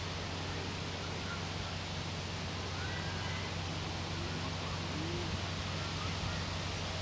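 Steady outdoor background noise, an even rushing hiss over a low hum, with a few faint bird chirps. No distinct exhaust beats from the approaching miniature steam locomotive stand out.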